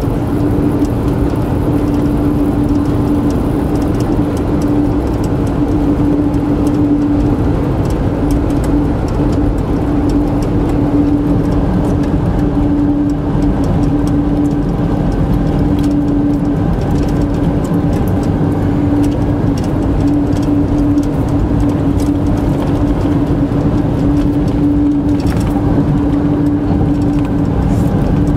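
Car driving steadily at road speed: constant engine and tyre road noise with a steady hum.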